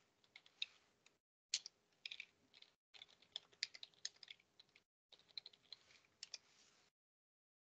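Typing on a computer keyboard: faint, quick runs of key clicks with short breaks, stopping about seven seconds in.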